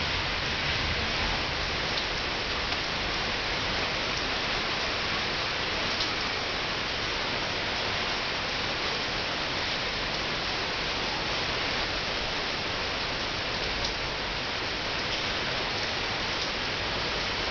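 Steady monsoon rain falling on leaves and wet paving: an even hiss with a few sharper drop taps now and then.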